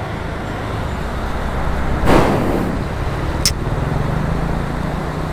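Motor traffic crossing a road bridge: an engine runs steadily and one vehicle passes close about two seconds in. Underneath is the steady rush of a flooded river.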